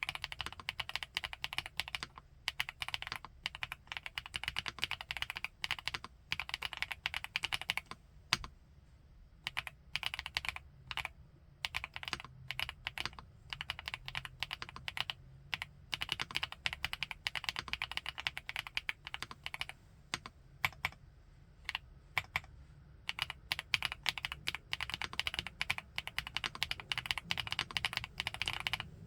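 FL-ESPORTS Geo75 mechanical keyboard with Kailh x Funkeys BCP switches being typed on in quick continuous runs of keystrokes, with a few brief pauses between runs.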